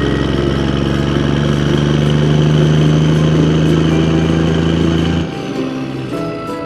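A motor engine running steadily at a constant pitch over background music, cutting off abruptly about five seconds in, leaving plucked-string music.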